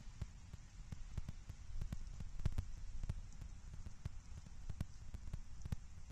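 Falling snow and wet precipitation pattering on an outdoor nest-cam microphone: many irregular sharp ticks over a steady low rumble.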